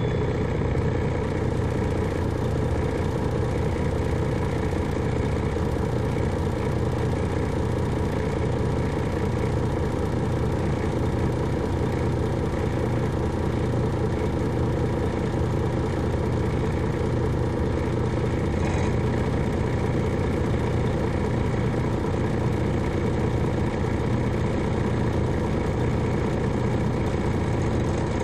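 Detroit Diesel Series 60 inline-six diesel of an MCI D4000 coach running steadily, heard from inside the bus.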